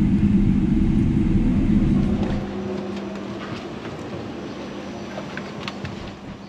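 Boeing 777-300ER cabin noise while taxiing, a loud low rumble that cuts off about two seconds in. It gives way to quieter cabin ambience: a steady hum with scattered clicks and knocks from passengers moving about.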